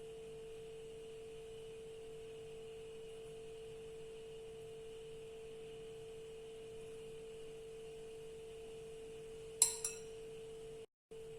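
Faint steady electrical hum held on one tone. About nine and a half seconds in, something hard clinks sharply and rings briefly, with a smaller second clink right after, and the sound cuts out for a moment just before the end.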